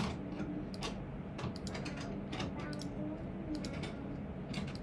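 Computer mouse clicking: a series of short, sharp clicks at irregular intervals over a low steady hum.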